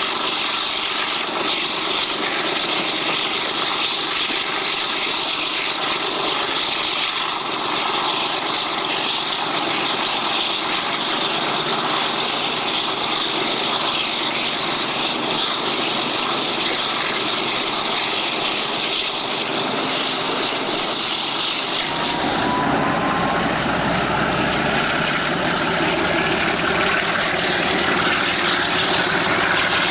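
A train running at speed heard from an open coach window: steady wind and wheel noise. About two-thirds of the way through, this cuts to the low rumble of an OSE A.451 (Montreal Locomotive Works MX627) diesel locomotive's engine running close by, with a faint rising whine just after the change.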